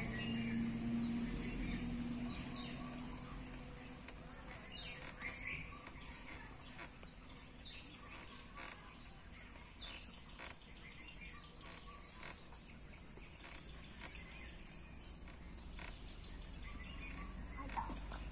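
Outdoor ambience: scattered short bird chirps over a steady background hiss. A low steady hum fades out over the first few seconds.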